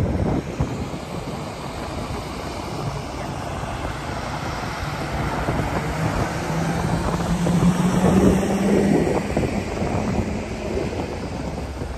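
Convoy of pickup trucks and box trucks driving past: steady engine and tyre rumble. A passing truck's engine drone grows and is loudest about eight seconds in, then fades.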